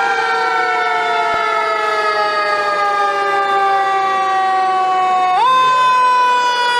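Fire engine siren wailing. Its pitch slowly falls, then swings sharply back up about five seconds in.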